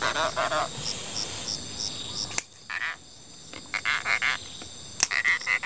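Insects chirping in a steady rhythm, about three high chirps a second, with croaking calls near the start and again in the second half. Two sharp clicks come about two and a half and five seconds in.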